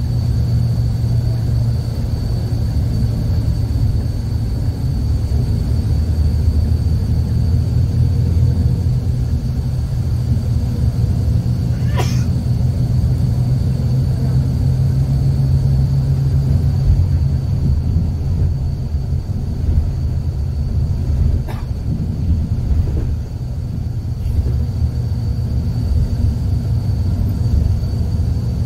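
Steady low road and engine rumble heard inside a moving vehicle's cabin, with a thin constant high whine over it and two brief sharp clicks, one near the middle and one later on.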